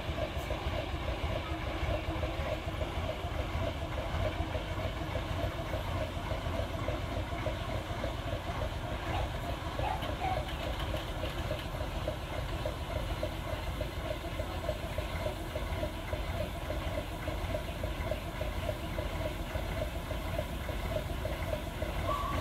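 Small diesel shunting locomotive's engine running steadily, with a fast, even exhaust beat over a low rumble.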